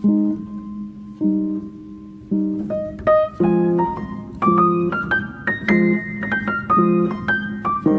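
Background music: piano playing a melody over a low repeating chord about once a second, the melody climbing higher in the second half.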